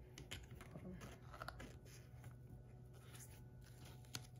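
Faint handling noise: a few light clicks and taps from a small plastic case being picked up and handled, over a low steady hum.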